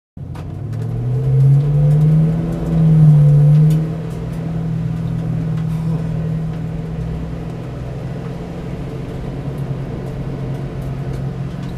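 V8 Supercar's V8 engine heard from inside the cabin, revving up twice in the first four seconds, then running steadily as the car rolls at low speed. Scattered sharp clicks are heard over it.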